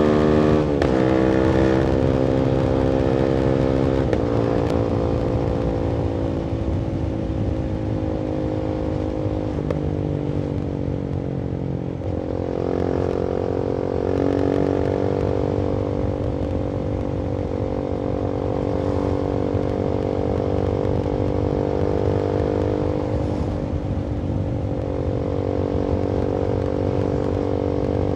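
Voge 300AC motorcycle, reflashed for more fuel, with modified airbox and free-flowing full-system exhaust, riding: the engine revs drop sharply about half a second in and again near 4 s, rise again around 12 s, then hold fairly steady while cruising.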